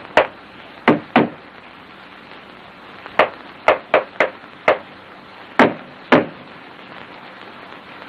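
A sparse series of sharp wooden knocks, about eleven, coming singly and in small clusters at uneven gaps, over the steady hiss of an old film soundtrack; the last knock falls about six seconds in.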